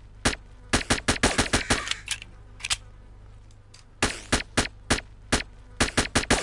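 Suppressed H&K USP pistol firing: sharp, short shots in quick strings. There is one shot, then about ten fired rapidly, a single shot, a pause of over a second, and another rapid string near the end.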